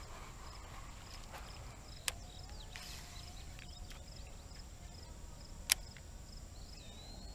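Faint evening riverside ambience: insects chirping in a steady rhythm of about two chirps a second over a constant high buzz. Two sharp clicks stand out, about two seconds in and again near six seconds.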